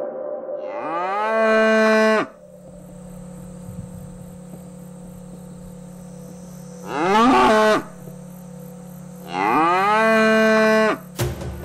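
Cattle mooing: three long calls, each rising in pitch and then held before breaking off. The middle call is the shortest. They are cows weak from starvation.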